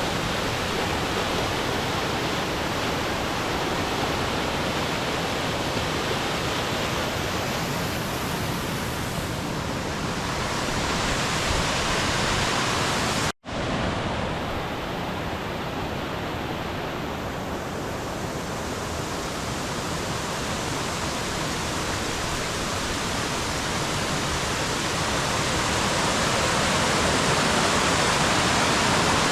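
Rushing water of a mountain stream, a loud, steady, even rush. It breaks off for an instant about 13 seconds in and carries straight on.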